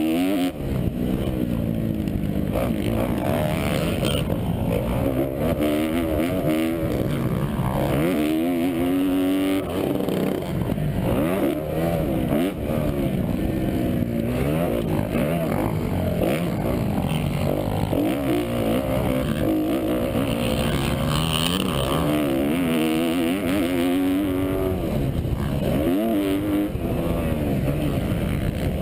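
2012 Kawasaki KX250F four-stroke single-cylinder engine ridden hard on a motocross track, its pitch repeatedly climbing under throttle and dropping back as the rider shifts and rolls off.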